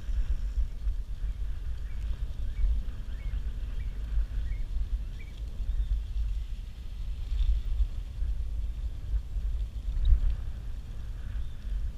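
Wind buffeting the microphone on a moving bicycle, a gusting low rumble, with a run of six short high chirps about half a second apart between about two and five seconds in.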